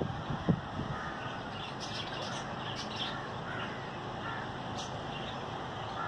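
Birds calling outdoors: a handful of short calls between about two and five seconds in, over a steady background hiss, with a couple of low thumps in the first half second.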